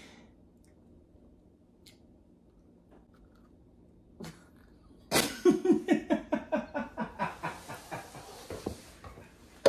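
About five seconds of near-quiet, then a person laughing hard: a fast run of short "ha" pulses, each falling in pitch, growing weaker and breathier toward the end.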